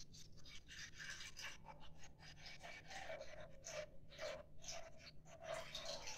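Water pouring from a plastic jug into a glass beaker: a faint, unsteady splashing trickle.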